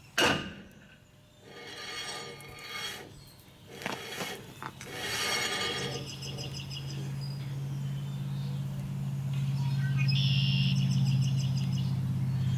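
One sharp blow of a small sledge hammer on a brake drum on a Dana 71 axle hub, knocking the drum over on its oversized stud holes to take out about fifteen thousandths of runout. About halfway through, a steady low hum comes in and grows louder.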